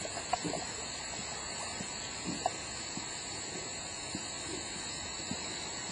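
Steady outdoor ambience: insects droning on a constant high note over an even wash of noise from the flooded creek, with a few faint ticks.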